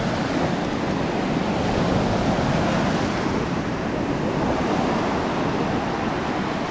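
Sea surf breaking and washing up the sand in a steady rush.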